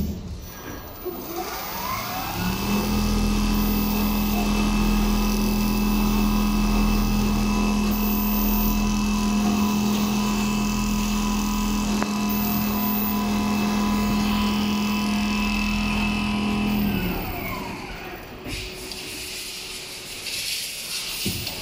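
Large automatic gantry sewing machine with a rotary sewing head running: its drive rises in pitch over the first couple of seconds, holds a steady hum with a thin whine for about fifteen seconds, then falls in pitch and stops, leaving a softer hiss near the end.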